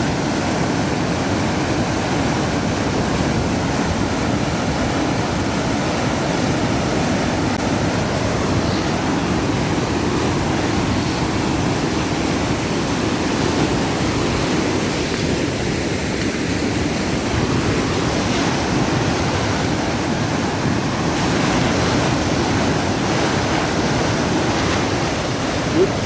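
Fast, swollen floodwater rushing and churning as thousands of gallons a second pour into a channel: a steady, loud rush of water.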